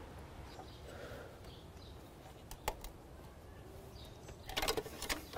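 Faint handling noise with a single click about two and a half seconds in, then a short cluster of clicks and rattles near the end as old spark plug wires are unplugged from their sockets.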